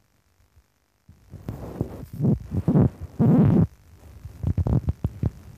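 Handling noise: muffled low thumps and rubbing right on a phone's microphone held against a lying dog's body, starting about a second in and coming in two spells.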